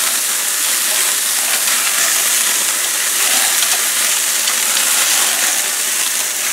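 Lamb chops and lamb steaks sizzling on a hot gas grill: a steady frying hiss. Grease flare-ups are burning under the meat, which the cook puts down to the olive oil in the marinade.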